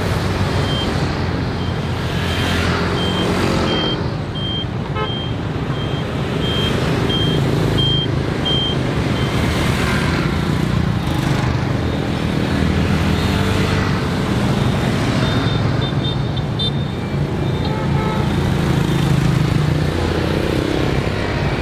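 Busy city-street traffic: the steady drone of many small motorbike and scooter engines mixed with passing cars. A high electronic beep repeats about three times every two seconds through roughly the first nine seconds.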